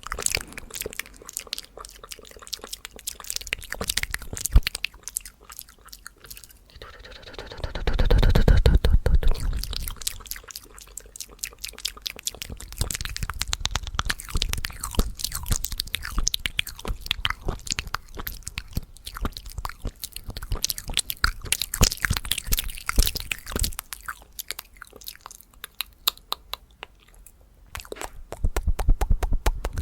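Fast ASMR mouth sounds: a quick, dense run of wet clicks and pops from lips and tongue, with louder, fuller stretches about eight seconds in and near the end.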